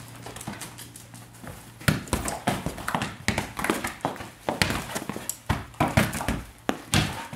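Border collies scrambling on a tiled floor while soccer balls are kicked and bounce off the floor and wall: an irregular run of sharp knocks, taps and paw clatter starting about two seconds in.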